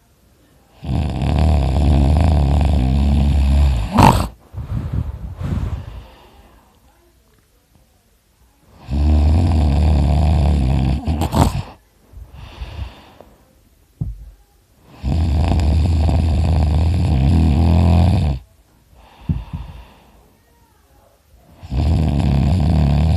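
A sleeping person snoring loudly with the mouth open: three long snores of about three seconds each, about every seven seconds, each followed by a quieter breath. A fourth snore begins near the end.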